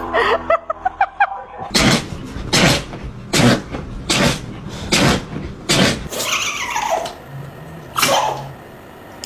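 A dog sneezing over and over: about six sharp sneezes a little under a second apart, after a quick run of short high whimpers. Near the end come two drawn-out cries that fall in pitch.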